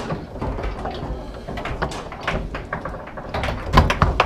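Foosball in play: sharp knocks of the ball and plastic men against the rods and table walls, with the rods clattering as they slide and spin. The loudest cluster of knocks comes near the end.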